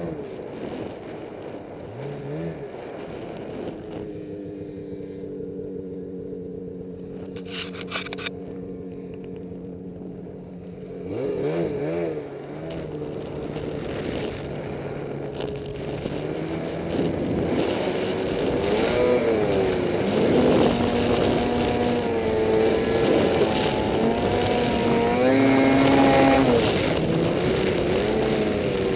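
Ski-Doo Summit snowmobile engine running steady at low speed, then revving up and down and getting louder as the sled is ridden through deep powder. A short burst of clicks about eight seconds in.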